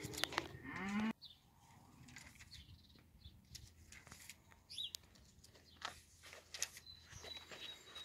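A cow mooing once, a single rising call that cuts off abruptly about a second in, followed by faint scattered clicks and rustles.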